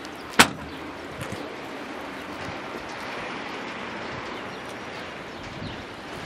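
Trunk lid of a 2013 FAW V5 sedan slammed shut once, a sharp single bang about half a second in, followed by steady wind noise.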